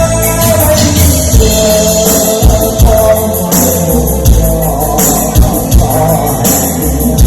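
A singer holding long notes with vibrato over a backing track with a steady bass beat, played loud through a sound system being tried out.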